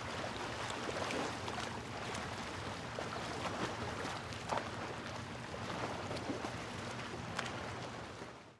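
Steady rushing hiss with scattered faint clicks and crackles, fading out at the very end.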